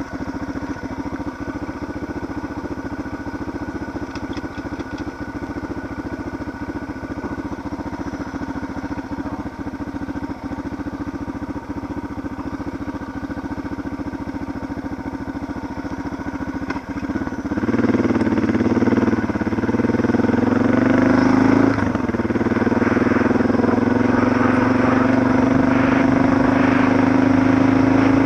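Suzuki DR650's single-cylinder four-stroke engine idling steadily, then about two-thirds of the way through it revs up as the bike pulls away, the engine note climbing gradually as it gathers speed, with a brief dip partway.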